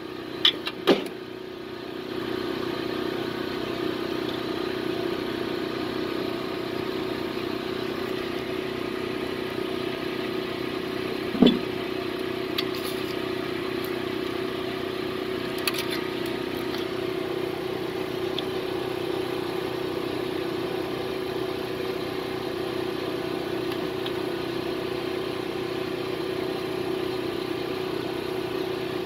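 A few sharp metal clinks of a hand tool on a nut welded onto a broken exhaust manifold bolt, the loudest about eleven seconds in, over a steady machine hum.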